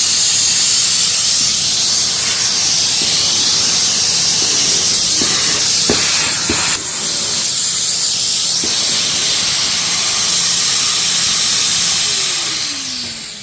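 Henry vacuum cleaner running with a loud, steady rushing hiss, with a few sharp knocks near the middle. Near the end the motor is switched off and winds down, its whine falling steadily in pitch as the hiss fades.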